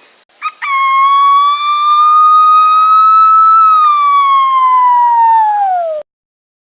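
A boy imitating a police siren with his voice. After a short chirp comes one long wail that rises slightly, then falls in pitch over its last two seconds and cuts off suddenly.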